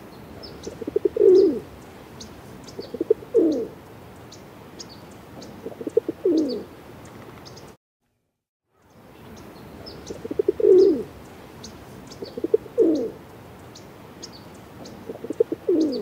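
Feral pigeons cooing: three coos, each a quick stutter ending in a falling glide, then a brief drop-out about eight seconds in, and the same three coos again. Faint high chirps of small birds are scattered throughout.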